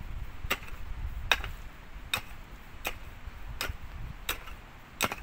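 A hand digging tool striking stony ground in a steady rhythm, seven sharp knocks a bit faster than one a second, over a low rumble: trench-digging by hand along a buried water pipe.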